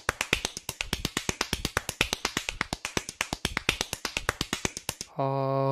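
Rapid, very even clicking, about nine clicks a second, stopping about five seconds in; near the end a man's voice holds a drawn-out vowel.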